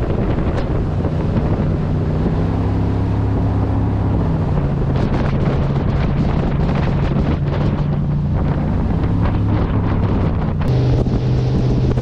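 Jet boat running under way, its engine a steady drone whose pitch shifts a few times, with wind buffeting the microphone.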